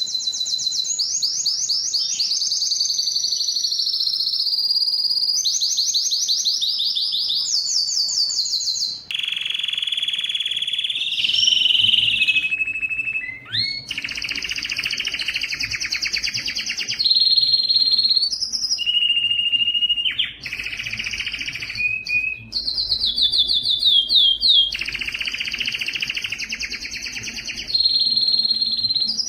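Spanish timbrado canary singing without a break: a string of fast rolling trills, each held for one to three seconds before the song jumps to another pitch, some high and some lower.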